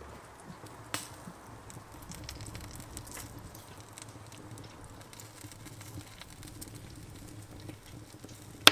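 Wood fire crackling in a brasero, with scattered small pops, a sharper pop about a second in and a loud sharp crack near the end.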